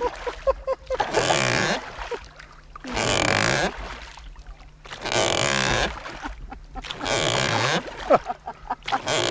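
Inflatable dinghy being rowed with oars: a noisy whoosh with each stroke, five strokes about two seconds apart.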